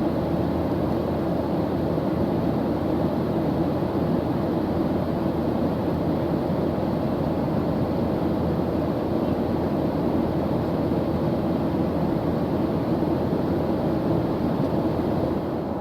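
Steady vehicle running noise, an even low rumble that holds unchanged and stops abruptly at the end.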